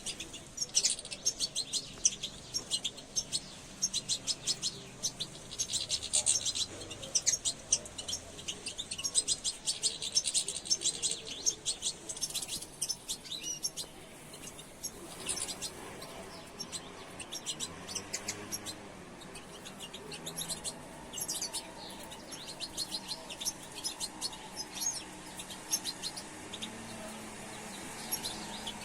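Caged songbirds singing, with fast runs of high chirps and twitters, busiest in the first half.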